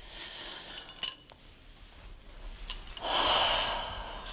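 A person's long breathy exhale, starting about three seconds in and lasting just over a second, after a few faint clicks around a second in.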